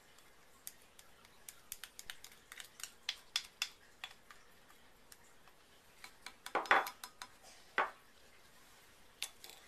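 Glass clinking and tapping: ice cubes and a glass beaker knocking against a cut-glass bowl as a gloved hand moves in the ice bath, with a couple of louder knocks about two-thirds of the way through.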